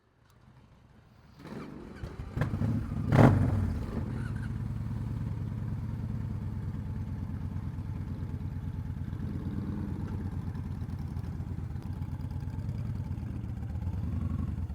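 A motorcycle engine running steadily after a few knocks and a loud burst in the first few seconds.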